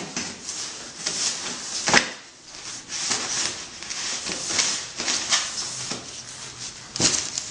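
Rustling and rubbing of stacks of paper banknotes being handled, with a sharp click about two seconds in.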